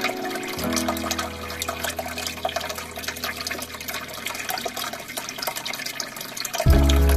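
Aquarium water trickling and splashing with a dense crackle of fine droplets and bubbles, over soft background music; the music comes back in loud near the end.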